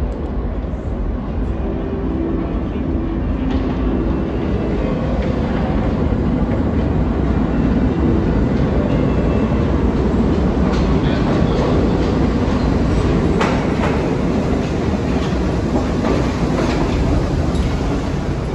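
New York City subway train running on the track, a heavy steady rumble that grows louder through the first half, with the wheels clicking over rail joints near the end.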